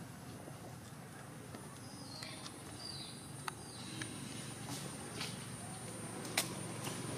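Quiet outdoor background with a few short, high chirps about two to three seconds in, then scattered sharp clicks and a thin, high steady tone that sets in about halfway.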